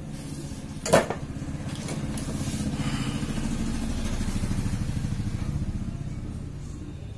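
A sharp click about a second in, then a low, rapidly pulsing engine rumble that swells and fades over several seconds.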